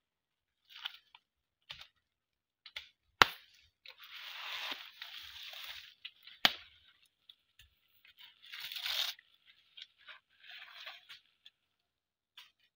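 Crunching and rustling of dry banana leaves and fibrous banana stems being pulled about and handled, with two sharp knocks, about three seconds in and again about six and a half seconds in.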